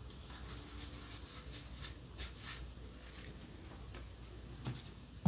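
Trading cards being slid one by one through a hand-held stack: a string of soft, papery swishes and flicks, the loudest a little after two seconds in, with one more near the end.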